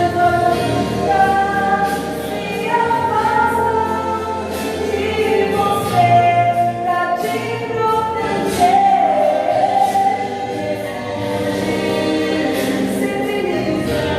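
A choir singing a gospel hymn in Portuguese with instrumental accompaniment, the voices holding long notes.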